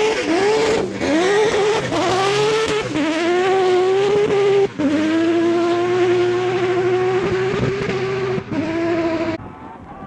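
Fouquet Mazda rally car's engine accelerating hard, its revs climbing and falling through several quick gear changes, then held at a steady high note as the car pulls away. About nine seconds in it drops abruptly to a fainter, more distant engine.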